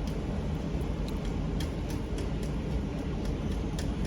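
A person chewing food, with a few faint short clicks, over a steady low background rumble.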